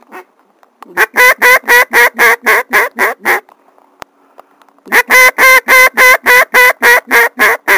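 A hunter's hand-blown waterfowl call: two loud runs of about ten evenly spaced calls each, roughly four a second, with a pause of about a second and a half between them.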